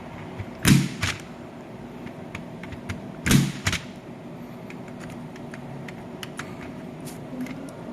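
A punch-down impact tool snapping as it seats and cuts the wires on a patch panel's connector, two sharp snaps close together, then two more a few seconds later, with light ticks of wire handling between them.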